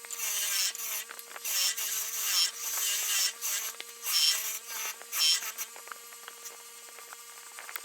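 Motor-driven brass wire wheel running with a steady hum while the steel jaws of a pair of diagonal cutting pliers are pressed into it, scouring off surface rust in repeated scratchy surges.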